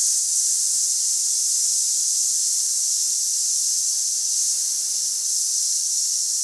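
A lit fuse burning with a steady, high fizzing hiss.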